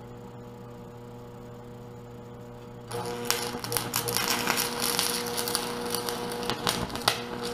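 A steady hum, then about three seconds in an aluminum stick-welding arc strikes and crackles and spits continuously. A 4043 aluminum electrode is burning at about 70 amps DCEP on a cracked aluminum skid plate.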